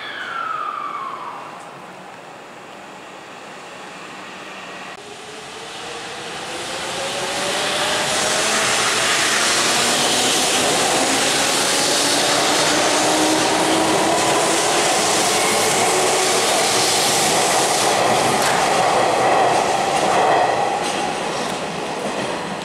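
Hanshin electric train pulling out and accelerating: its motor whine rises slowly and steadily in pitch over loud running noise from the rails, then eases off near the end. At the very start a short wheel squeal falls in pitch and dies away.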